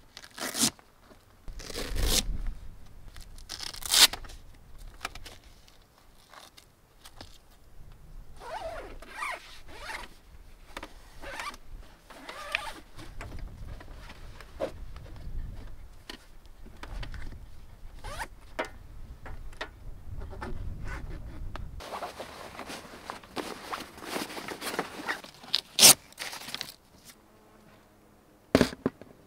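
Zipper on a Thule Foothill rooftop tent's fabric travel cover being pulled open in a series of drags, with fabric scraping and a few sharp knocks from the cover's fittings.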